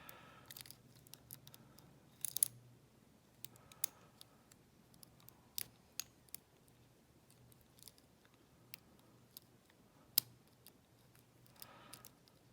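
Lock pick and tension wrench working the pins of the interchangeable pin-tumbler core in an American A3650 padlock: sparse faint metallic clicks and light scraping, with a louder cluster of clicks about two seconds in.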